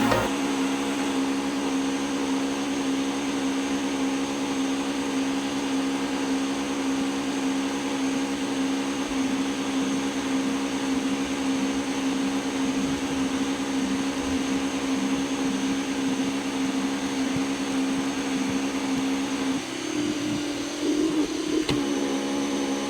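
Eufy RoboVac 30C robot vacuum running, a steady motor hum with a strong low tone. Near the end the hum dips and shifts higher for a couple of seconds, then settles again.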